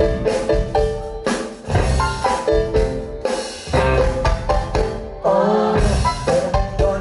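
Pop-rock band playing live in a club: drum kit with a bright melodic line over it. The band cuts out for short stops about every two seconds.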